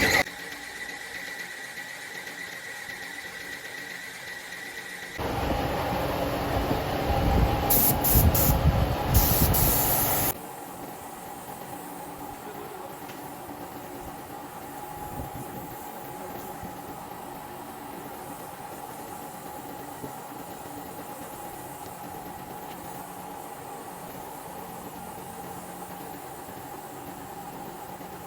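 Air-conditioner compressor, rigged as an air compressor, running with a steady hum. From about five to ten seconds in there is a louder rush of air, with short hissing spurts near its end, before the plain running hum returns.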